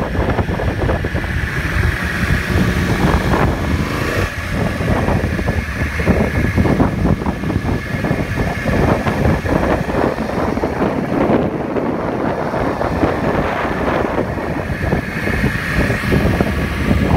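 Wind buffeting the microphone: a loud, gusty rumble that never lets up, with a faint steady high tone underneath.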